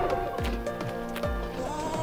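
Background music with a beat.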